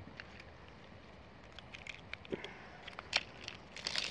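A retractable tape measure being handled: scattered light clicks and taps, then a short burst of rattly clicking near the end as the blade is pulled out.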